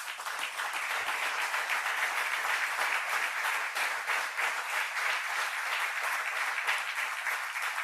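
Audience applauding in a large hall, many hands clapping steadily, dying away near the end.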